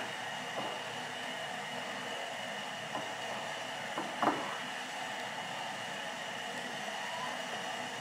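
Steady background hiss with a few light taps and clicks as fried zucchini slices are laid into a glass jar, the loudest about four seconds in.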